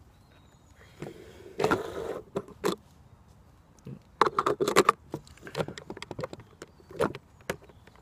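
A skateboard wheel being worked by hand onto the metal truck axle: irregular clicks, knocks and scraping of wheel and bearing on the axle, in clusters about one and a half seconds in, around four to five seconds in, and once near seven seconds.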